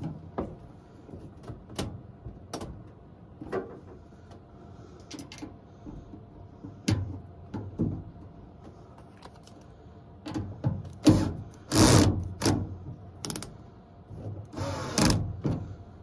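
Screws being driven by hand into a washing machine's metal cabinet to mount the new suspension dampers: scattered clicks and knocks of the screwdriver and panel, with a few louder scraping bursts in the second half.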